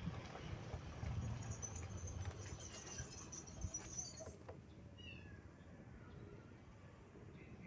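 Kittens mewing, a series of faint short high-pitched cries that fall in pitch, starting about five seconds in. Before that there is low rumbling handling noise with a few knocks.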